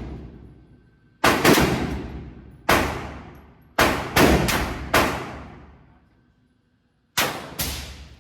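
Glock 25 pistol in .380 ACP being fired about nine times at an uneven pace, some shots in quick pairs, each crack followed by a short echoing decay.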